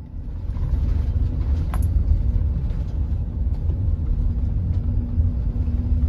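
Low rumble of a car driving, heard from inside the cabin: engine and tyre noise that swells during the first second as the car gets moving, then holds steady.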